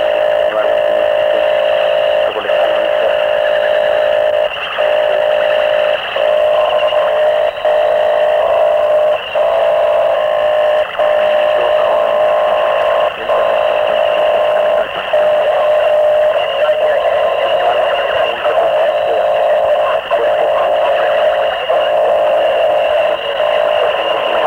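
Harsh noise music from a home-made cassette demo, built from microphones and homemade electronics: a loud, dense wall of distorted noise, thin and midrange-heavy with no real bass or treble. It is broken by short dropouts every second or two.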